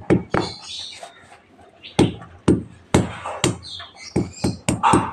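Garlic cloves being pounded on a bare concrete floor: uneven thuds, about one every half second after a short lull, then a quicker run of strokes near the end.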